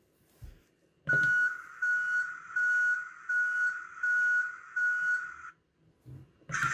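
Toy Volvo articulated dump truck's built-in electronic sound effect: about six reversing-alarm style beeps at one pitch, roughly one every 0.7 s, over a hiss from its small speaker. Near the end another sound effect comes on.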